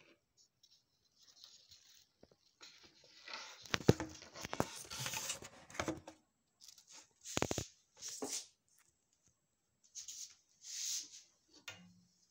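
Irregular rustling and crackling of stiff millinery material handled close to the microphone, in bursts, busiest in the middle.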